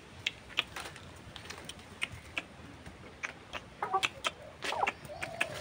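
Scattered light clicks and taps, with a few soft clucks from a white broiler chicken in the second half.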